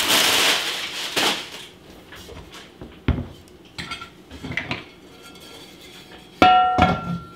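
Plastic packing wrap crinkling as it is pulled away, then a few light knocks, and near the end the heavy cast iron lid of a Legend Dutch oven clanks onto its pot and rings briefly with a metallic tone.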